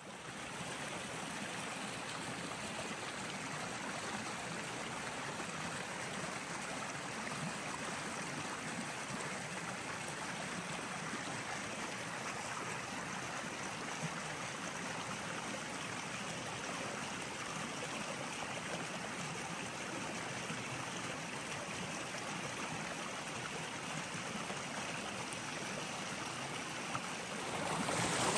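Flowing water rushing steadily, growing louder near the end.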